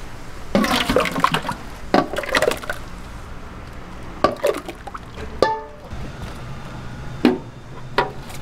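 Thick sweet-and-sour sauce sloshing and pouring as a stainless steel bowl scoops it from a wok into a steel stockpot, with repeated metal clanks of the bowl against the rims. One clank, a little past halfway, rings briefly.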